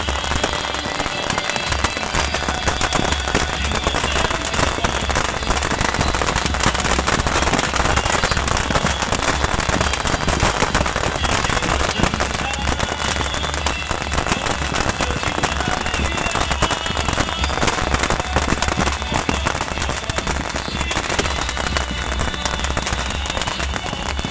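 Beehive fireworks: a rack of many small rockets firing at once, a dense, unbroken crackle of small bangs that barely lets up.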